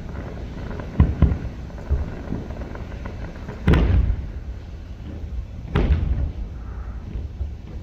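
Fireworks shells bursting in the air: sharp booms, two close together about a second in, the loudest a little before the middle and another about six seconds in.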